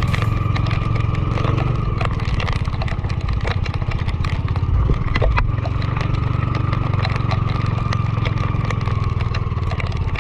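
Small engine running steadily at an even speed throughout, with scattered clicks and knocks over it.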